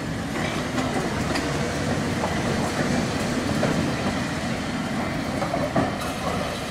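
Open-top double-deck electric tram running along street track as it moves off. Its wheels and running gear give a steady rumble on the rails, with a few scattered clicks.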